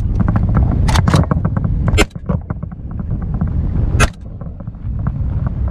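Four gunshots: two close together about a second in, one at about two seconds and one about four seconds in. Under them a vehicle engine runs steadily.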